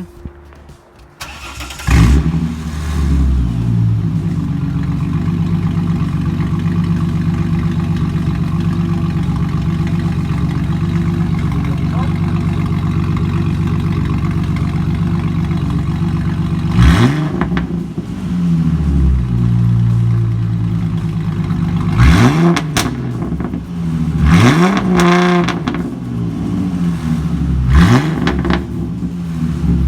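2006 Ford Mustang's 4.0-litre V6 with its muffler removed, started up about two seconds in and left to idle, then blipped several times near the end in quick rising-and-falling revs through the open exhaust.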